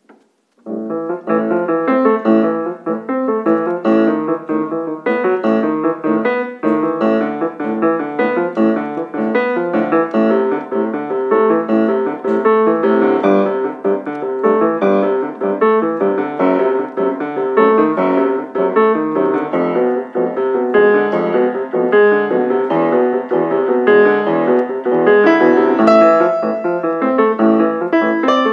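Grand piano played four hands: a piece begins about half a second in after a near-silent pause, then runs on in a dense stream of quick notes.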